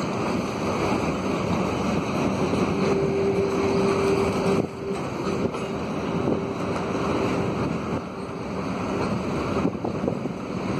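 CN freight cars rolling across a steel railway bridge: a steady rumble of wheels on rail, with a faint steady tone that comes in about three seconds in and fades out after about seven.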